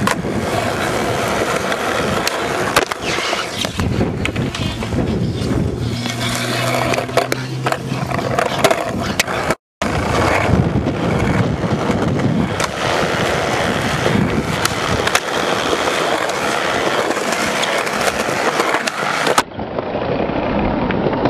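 Skateboard wheels rolling over concrete, with repeated clacks and knocks of the board. The sound cuts out for an instant about ten seconds in and turns duller near the end, as separate clips change.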